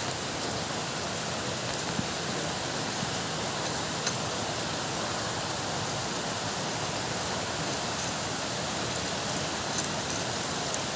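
Steady, even hiss of background noise, with a few faint clicks as small steering rack parts, a lock washer and the inner tie rod end, are handled.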